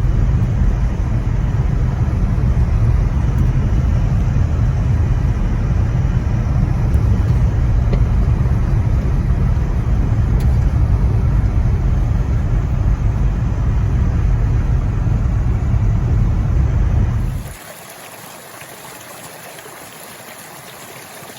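Car driving: a steady, loud low rumble of engine and road noise that cuts off suddenly about 17 seconds in, leaving a quieter hiss.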